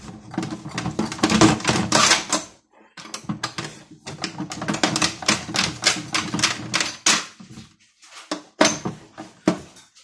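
Toy Miele washing machine on its rinse: its small motor hums while the drum turns the wet socks with a fast clicking rattle. The tumbling comes in runs of a few seconds with short pauses, ends in two short bursts, and stops near the end.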